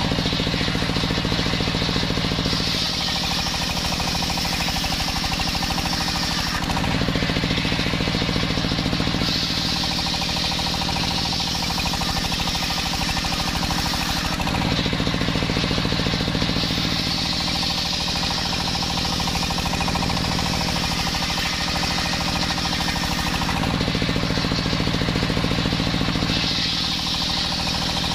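Homemade belt-driven table circular saw running steadily while ripping jackfruit wood into boards. A hissing whine from the blade in the wood swells and fades several times as successive cuts are fed through.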